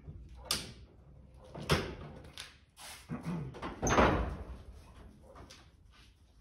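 Footsteps and knocks on a workshop floor, then a door being opened about four seconds in, the loudest sound.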